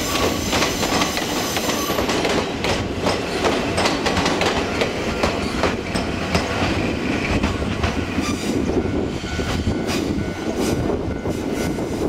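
Ichibata Electric Railway electric train passing over a level crossing close by, its wheels clacking over the rail joints, while the crossing alarm rings with the barriers down.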